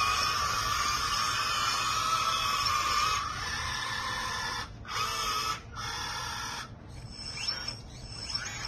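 Small electric RC skid steer loader's hydraulic pump and drive motors whining while its lift arms and bucket move: a steady whine that cuts off about three seconds in, two short bursts of the same whine around the middle, then softer, repeated rising whines as the tracks turn the machine.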